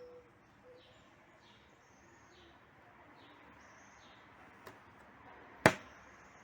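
A bird chirping over and over, short faint falling chirps about once a second. A sharp click near the end is the loudest sound, with a smaller click shortly before it.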